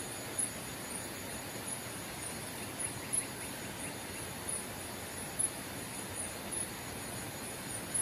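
Night-time insects chirping: short, high-pitched chirps repeating unevenly, about one or two a second, over a steady hiss.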